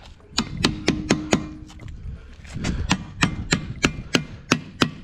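Hand hammer striking a steel bar braced against a truck brake actuator being reassembled. First a quick run of sharp knocks, then a short pause, then a steady series of blows at about four a second.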